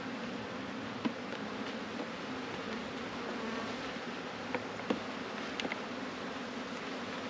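Honey bees buzzing steadily over an opened hive, a low even hum. A few sharp clicks break through, about a second in and several more around four to six seconds in, as frames are worked in the wooden hive box.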